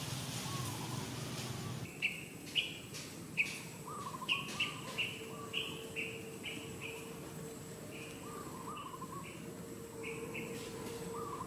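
Birds chirping: short high notes repeated irregularly, starting about two seconds in, with a few lower warbled calls among them.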